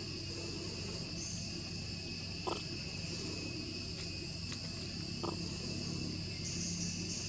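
Steady insect chorus, a continuous high-pitched drone, over a low background hum, with two faint brief sounds about two and a half and five seconds in.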